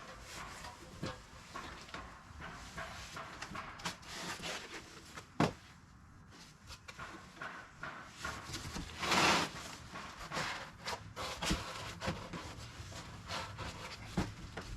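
Wood chipper parts being unpacked and handled: scattered knocks and clicks with rustling. There is a sharp knock about five seconds in and a louder, longer rustle about nine seconds in.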